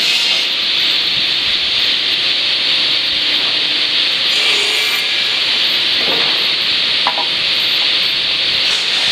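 Timbermill MH6C-20 automated lumber saw running with a steady, loud hiss, with a few brief clanks and clicks about four and a half, six and seven seconds in.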